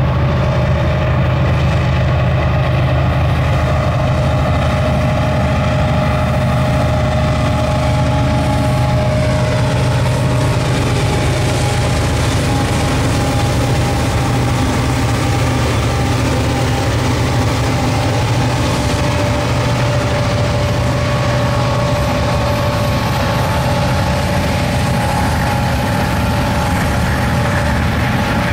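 Union Pacific diesel locomotives pulling a freight train past at close range: a deep, steady engine drone whose pitch drops a little about nine seconds in as the units go by. After that comes the steady rolling noise of loaded freight cars passing on the rails.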